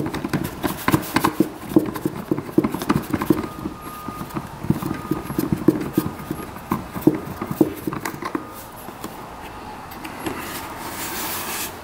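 Hands handling parts, making irregular knocks and clatters that thin out after about eight seconds, with a brief hiss near the end.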